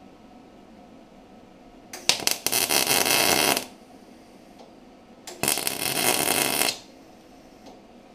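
Electric arc welding a bracket into a car body: two bursts of crackling arc, each a second or so long, with a short pause between.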